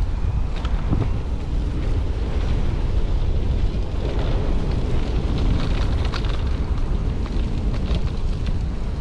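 Wind buffeting a GoPro action camera's microphone during an electric mountain bike ride over rough ground, a steady low rumble with scattered clicks and rattles.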